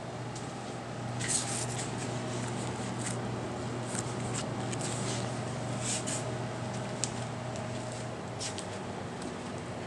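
Slime being mixed and squished by hand: a series of short, irregular squishing and crackling sounds over a low, steady hum.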